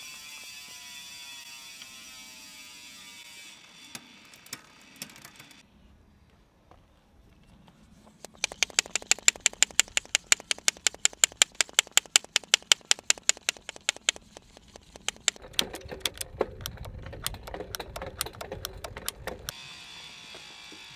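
Bicycle build work sounds. After a steady hiss with faint falling tones, a run of sharp, even ratcheting clicks, about five a second, goes on for about six seconds, followed by a few seconds of low rumbling.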